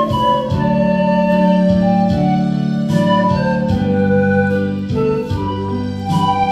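Pan flute playing a slow melody of long held notes with slides between them, over a keyboard backing track with a steady beat.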